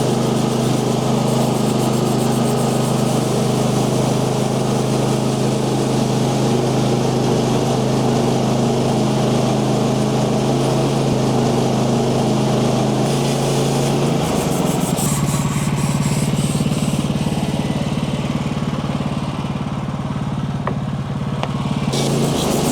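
Small gasoline engine of a portable bandsaw sawmill running steadily at speed; its note changes about fourteen seconds in.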